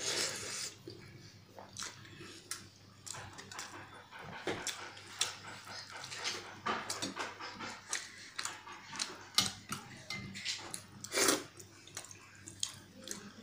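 Close-up wet mouth sounds of eating pakhala, watery fermented rice, by hand: irregular chewing, smacking and sucking clicks. A short noisy burst comes right at the start and the loudest one about eleven seconds in.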